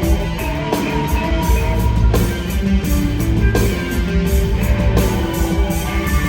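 Live indie rock band playing: electric guitar notes held over bass and drums, with heavy drum hits about every second and a half.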